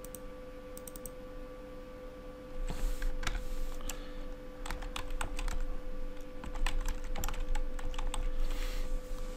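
Typing on a computer keyboard: a run of quick, irregular key clicks starting about two and a half seconds in, over a faint steady electrical hum.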